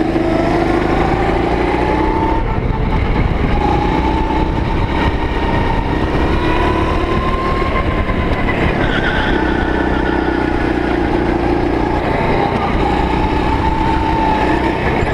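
Go-kart engine running loud under way, its pitch rising and falling several times as the throttle is opened and eased.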